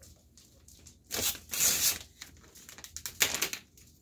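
A plastic food pouch being torn open, in two tearing bursts: a longer one about a second in and a shorter one about three seconds in, with crinkling of the plastic.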